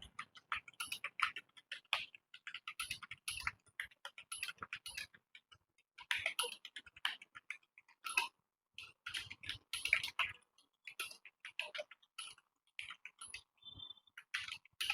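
Computer keyboard being typed on quickly, runs of rapid keystrokes broken by short pauses, as in a timed typing test.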